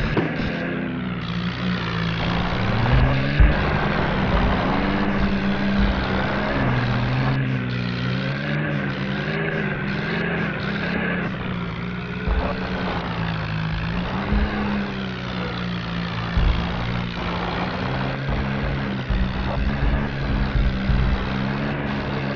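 Off-road vehicle engine running under varying load, its pitch rising and falling, with scattered low thumps and knocks.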